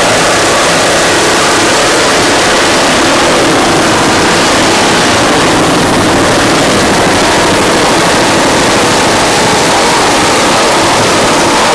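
Loud, steady engine noise over a dense rushing hiss, unchanging throughout.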